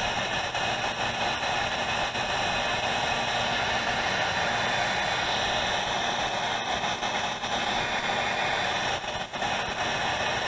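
Electric heat gun blowing hot air with a steady hiss and fan whir while shrinking the heat-shrink tubing on a crimped wire connector. There is a brief dip in the airflow sound about nine seconds in.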